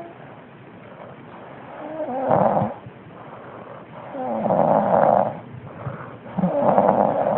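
Snoring: three long, rasping snores about every two seconds, with quieter breathing between them.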